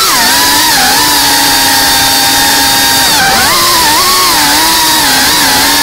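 FPV quadcopter's electric motors and propellers whining, the pitch holding steady for about two seconds, then rising and falling again with throttle changes.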